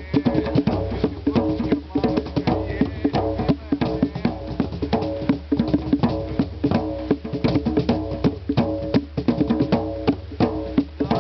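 Hand drums played in a fast, busy rhythm of dense strikes, with a ringing pitched tone from the drumheads.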